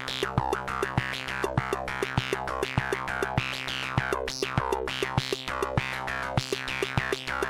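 Electronic music played live on a Korg volca drum and Arturia MicroFreak: a quick, regular pattern of sharp synthesized drum hits over held low synth tones, with falling pitch sweeps as the knobs are turned.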